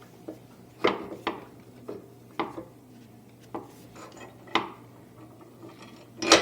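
Metal screws clinking against the table's metal frame as they are lined up and set into their holes: a handful of short, sharp clinks at irregular spacing, the loudest near the end.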